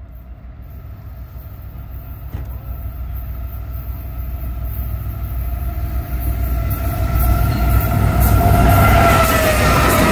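CSX freight train's diesel locomotives approaching and passing close by: a low rumble that grows steadily louder, with a whine that dips slightly in pitch as the lead units go past near the end.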